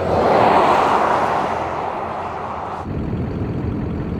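A road vehicle passing by, its tyre and engine noise swelling to a peak about half a second in and then fading. About three seconds in, the sound changes abruptly to a steadier, rougher outdoor noise.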